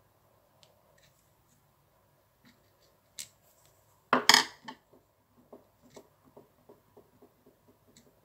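Small metal clicks as a metal pick works the carbon-brush spring and brass brush holder of a Makita impact driver's motor. A louder clatter comes about four seconds in, followed by a run of light ticks about four a second.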